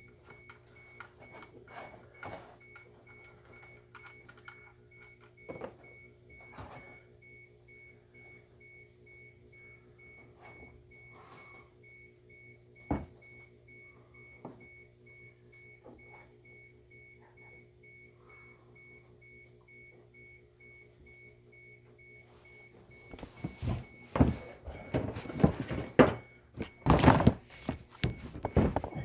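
Mostly faint: a low steady hum with scattered small clicks and one sharp knock about 13 seconds in, as the engine flush and oil drain out of the sump. Near the end comes a run of loud, irregular knocks and scrapes as a plastic oil drain pan is handled and slid into place under the car.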